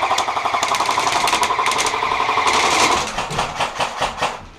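Airsoft electric rifles firing on full auto: a fast, even rattle. About three seconds in it gives way to a slower run of separate shots, which fades out just before the end.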